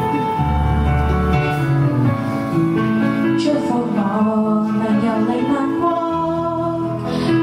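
A woman singing a pop ballad into a microphone over a recorded backing track; the accompaniment plays alone at first and her voice comes in about three seconds in.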